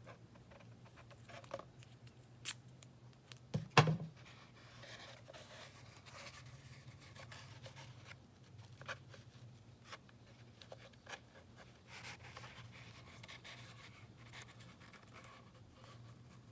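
Painter's tape being pulled off its roll and torn, the loudest part a short burst of ripping about four seconds in, followed by small scratching and rubbing sounds as the tape is pressed over yarn on a cardboard tube. A steady low hum runs underneath.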